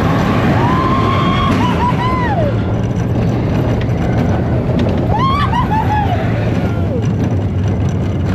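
Expedition Everest's coaster train running fast along the track, a loud steady rumble of wheels and wind. Riders yell twice over it, about half a second in and again about five seconds in, each a rising-then-falling cry.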